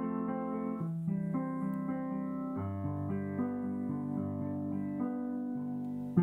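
Electronic piano playing slow, sustained chords under a simple melody. A sharp click comes right at the end.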